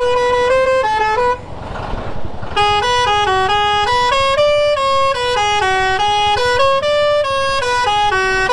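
Truck's electronic musical horn playing a tune in short stepped notes. It breaks off for about a second after the opening notes, then plays on, with an engine running underneath.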